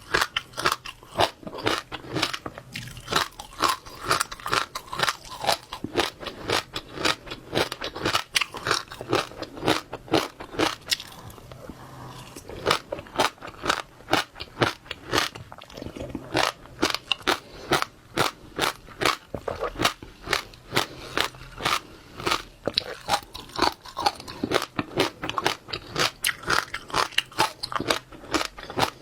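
Close-miked chewing of wet passionfruit seeds: a rapid run of sharp crunches and pops, several a second, with a short lull about a third of the way in.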